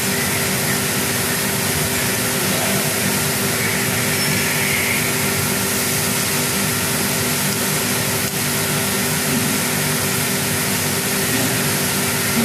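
Steady machine hum and hiss with a few held tones, without a break except for a brief dip about eight seconds in.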